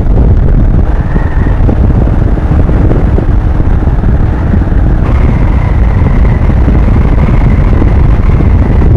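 Wind rushing over a Vemar Sharki modular helmet with its visor up at 70–80 km/h, picked up by a helmet-mounted camera as a loud, steady low rumble with the motorcycle running beneath it. A faint steady whine comes in about five seconds in. The rider judges the visor-up wind noise at 80 km/h not too loud.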